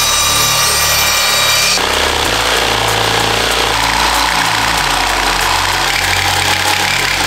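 A sliding miter saw's motor running with a steady whine as it cuts a wooden board. About two seconds in, this gives way to an electric jigsaw sawing through the board.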